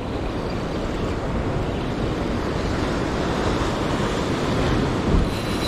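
Rough sea surf breaking and washing over rocks, a steady rushing noise, with wind buffeting the microphone.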